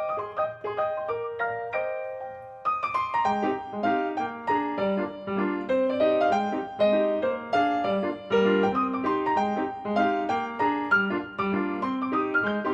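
Background piano music: a gentle melody, with lower accompanying notes coming in about three seconds in.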